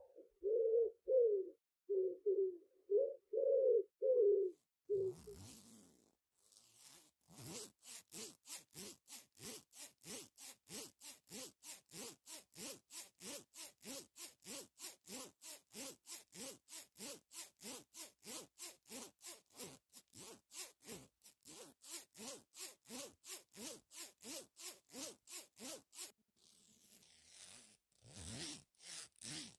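A dove or pigeon cooing for the first few seconds. Then a steady rhythm of short scraping strokes, about two and a half a second, with a brief pause near the end.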